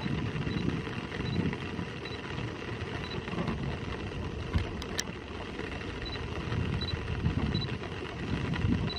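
Gusty wind rumbling on the microphone over a steady outdoor hiss, with a faint high peep repeating about every two-thirds of a second. Two sharp clicks about halfway through.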